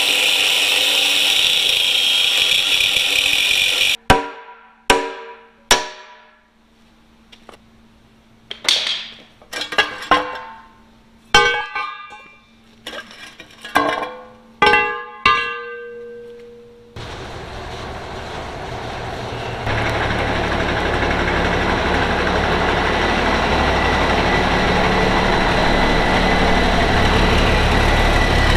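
Angle grinder cutting through the steel collars of huck bolts, then a dozen or so sharp hammer blows on steel frame cross-member pieces, each ringing briefly. From about two-thirds of the way in, the Peterbilt 359's diesel engine runs steadily, growing louder a few seconds later.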